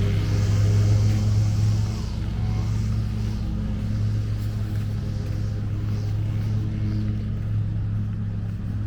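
A steady low motor hum with even overtones.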